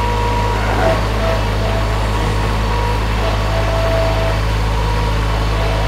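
Skid steer loader's engine running steadily, with a thin whine that comes and goes above it.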